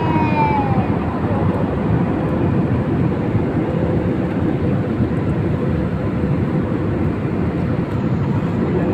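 Steady low roar inside an airliner's passenger cabin in flight: engine and airflow noise.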